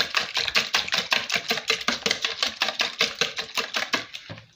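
Metal wire whisk beating raw eggs in a plastic bowl: fast, even clicking strokes, about six or seven a second, that stop about four seconds in.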